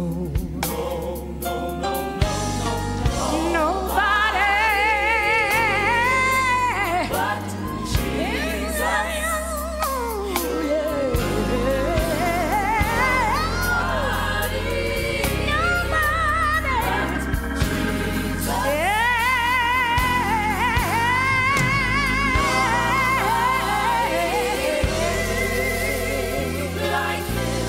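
Live gospel music: a woman singing with strong vibrato and long sliding runs over held band chords and bass.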